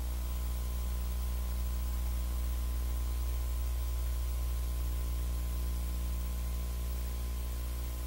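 Steady low electrical hum with its overtones, under an even hiss, with no program sound: the background noise of a video tape playback and transfer during a silent stretch.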